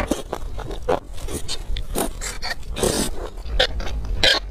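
Close-miked eating sounds: a person slurping strands of saucy food into the mouth and chewing, heard as an irregular run of short slurps and smacks.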